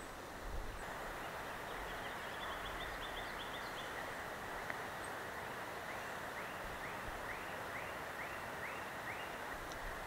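Outdoor ambience: a steady rushing hiss with a series of short, rising chirps from a small animal repeated about two to three times a second, fading out near the end.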